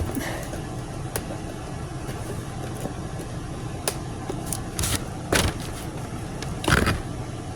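A steady low motor-like rumble in the background, with a few short rustles and clicks from a cardboard kit box being handled and pried open.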